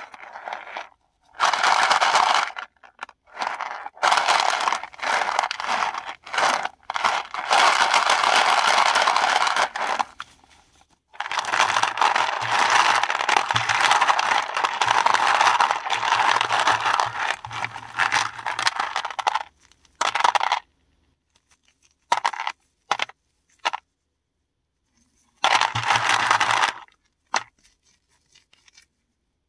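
Paradichlorobenzene mothball tablets being crushed and ground by hand, giving crunching and scraping in bursts: several short ones, one long run of about eight seconds near the middle, then a few brief ones with pauses between.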